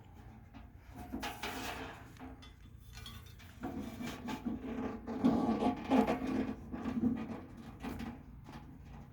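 Irregular rubbing, scraping and light knocks as things are handled and shifted, loudest about five to seven seconds in.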